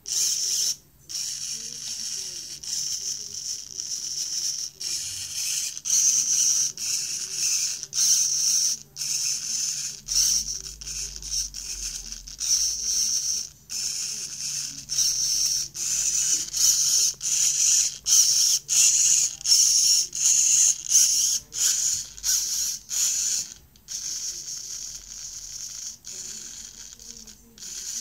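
Small RC steering servo whirring in short repeated bursts as it swings a scale-model bus's front wheels back and forth; a high-pitched gear whir starting and stopping about once or twice a second.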